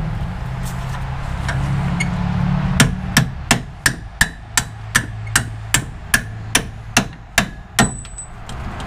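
A low steady hum, then, from about three seconds in, a steady run of about fourteen hammer blows on a steel punch, some two and a half a second, stopping shortly before the end. The punch is driving the 17 mm strut-to-knuckle bolts out of a 2003 Mazda Protege's rear strut.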